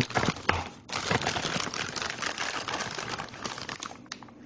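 Packaging crinkling and rustling as it is handled while unpacking a set-top box, with a few sharper clicks in the first second and the rustling easing off near the end.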